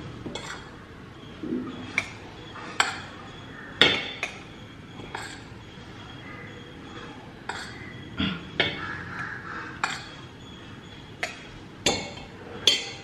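A spoon clinking and tapping against a stainless steel puttu tube while puttu flour is spooned into it: about a dozen sharp metallic clinks at uneven intervals.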